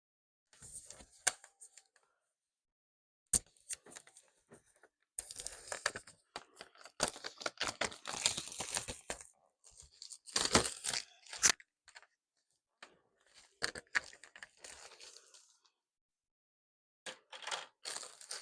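Plastic packaging and case parts being handled: bursts of rustling and crinkling with sharp clicks, as a hard plastic laptop case is unwrapped and fitted.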